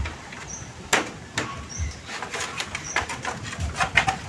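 Bamboo knocking, clicking and creaking as a horizontal bamboo rail is forced through a wall of upright bamboo slats: one sharp knock about a second in, then a run of quicker clicks and rattles. A bird gives short high chirps now and then.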